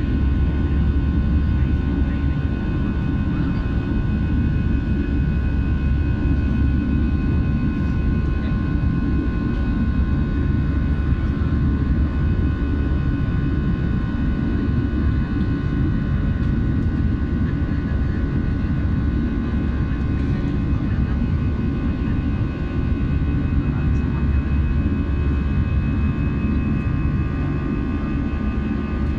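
Jet airliner's turbofan engines at climb power during the climb after takeoff, heard inside the cabin over the wing. It is a steady, loud low rumble with a constant high whine of several tones.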